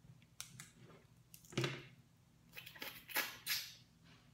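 Close-up eating sounds of a cooked Dungeness crab being picked apart by hand and its meat eaten: a string of short wet clicks and crackles of shell and mouth, loudest about a second and a half in and again in a cluster around three seconds.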